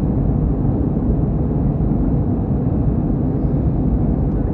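Jet airliner cabin noise in flight: a steady, even low rumble of the engines and rushing air, heard from a window seat inside the cabin.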